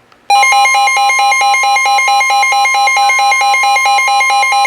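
NOAA Weather Radio alert sounding: a loud, rapidly pulsing alarm beep over a steady high tone, cutting in abruptly a moment after the start. It signals an incoming warning broadcast.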